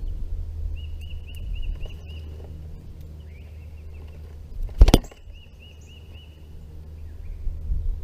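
Wind rumbling on the microphone, with a songbird in the background giving two short runs of quick repeated high chirps, about a second in and again just after five seconds. A single sharp knock, the loudest sound, comes near the five-second mark.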